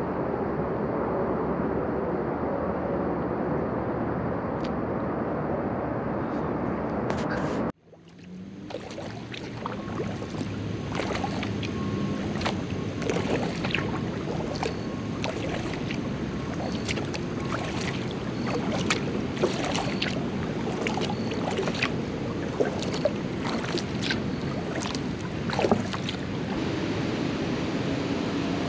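Steady wind and water noise around a kayak on open water. After a sudden cut about eight seconds in, kayak paddle strokes follow: short water splashes and drips at irregular intervals over a steady wash of water.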